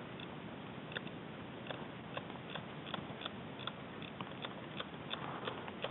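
Faint, irregular clicks and light crunches, about two or three a second, over a steady hiss: footsteps and gear rattling as someone walks over rocky forest ground.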